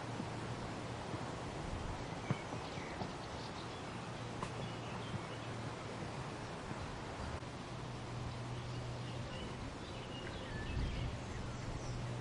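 Breeze rustling the leaves of a weeping willow, a steady hiss with a low steady hum underneath. A few faint, high bird chirps come mostly in the second half, and there is a single sharp click about two seconds in.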